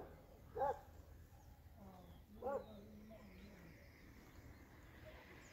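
Two short animal calls about two seconds apart, the first less than a second in, over a quiet outdoor background with a faint low hum in the middle.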